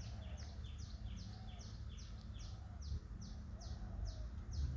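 A bird calling repeatedly, an even series of short falling chirps in two alternating pitches, several a second, over a low outdoor rumble.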